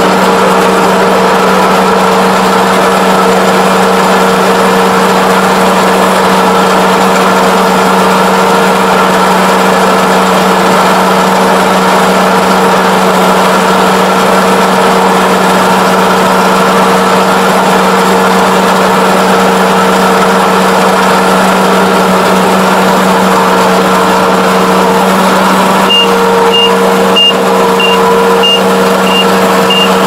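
Kubota ARN460 rice combine harvesting, its engine and threshing machinery running in a loud, steady drone heard from inside the cab. About four seconds before the end, an alarm beeper begins sounding short high beeps, about one and a half a second.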